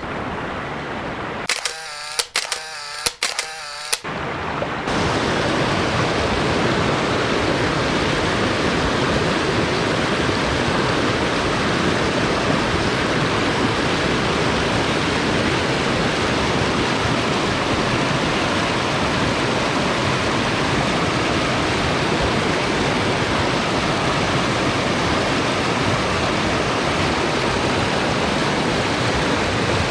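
Steady rush of a fast-flowing mountain creek running high, close to the microphone. Near the start a few sharp clicks break in for a couple of seconds.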